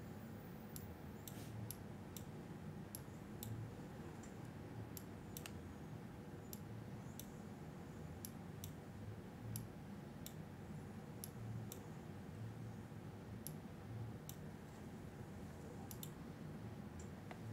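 Faint sharp clicks at an uneven pace, about one or two a second, over a low steady hum.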